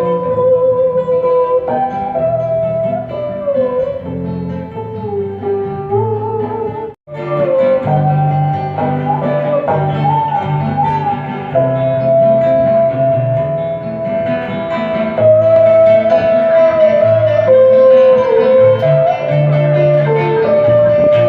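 Traditional Vietnamese band playing: a plucked-string lead melody that slides between notes over a steady low accompaniment, breaking off for a moment about a third of the way in.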